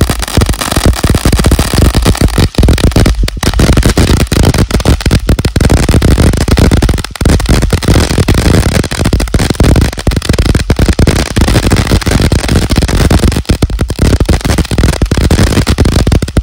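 TNT "Fish On" firework fountain burning at full output: a loud, dense hiss of spraying sparks mixed with constant rapid crackling.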